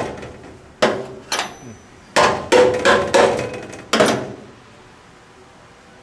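Screwdriver striking and jabbing the rusted steel walls of an antique gas furnace's heat exchanger: about seven sharp metallic clanks, each ringing briefly, stopping about four seconds in. The blows test whether the rust-weakened metal will punch through.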